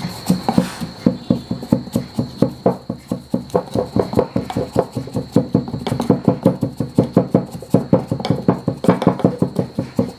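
A knife rammed rapidly and repeatedly down into a pipe, tamping loose firecracker powder tight. It makes an even train of dull knocks, about five a second.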